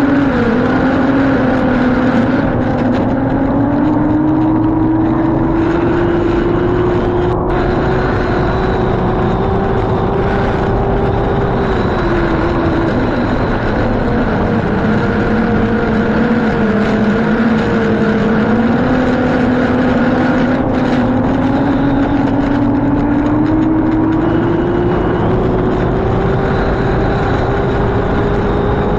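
Race boat's engine running hard at speed, its pitch easing off and building back up a few times, over a steady rushing noise.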